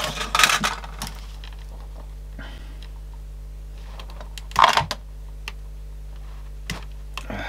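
Small hand tools being picked up and handled on a workbench: light clicks and clatter in two short bursts, one at the start and one a little before five seconds in, with a few single ticks near the end, over a steady low hum.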